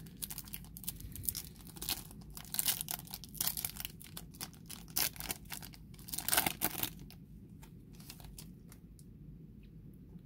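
A foil trading-card pack wrapper being torn open and crinkled by hand: a dense run of crackles, loudest about six seconds in, then stopping about seven seconds in, leaving only a few faint ticks as the cards are handled.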